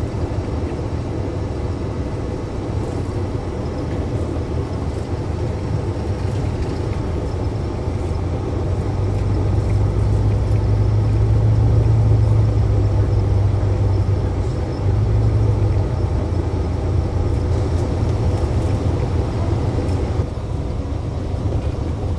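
Steady low rumble of road and engine noise inside a moving car, swelling louder for several seconds about halfway through.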